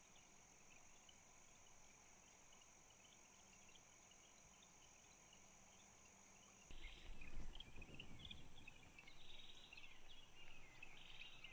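Faint evening insect chorus: a steady high buzzing with scattered chirps. About two-thirds of the way in, louder low rustling and handling noise comes in under the chirping.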